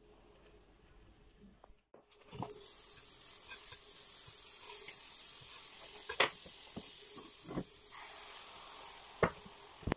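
Butter sizzling in a hot non-stick frying pan, a steady hiss that starts about two seconds in, with a few sharp clicks and knocks over it; pancake batter goes into the pan near the end.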